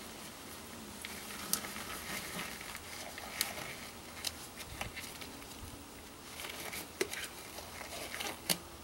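Black disposable gloves being pulled on and worked onto the hands: faint rubbery rustling and crinkling, with a handful of sharp snaps and clicks scattered through.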